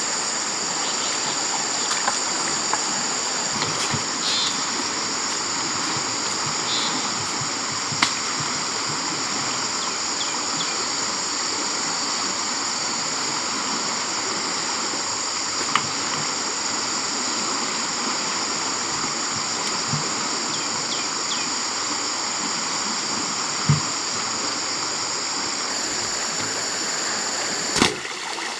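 A steady high drone of many insects over the continuous rush of flowing river water, with a few brief knocks. The insect drone cuts off abruptly near the end.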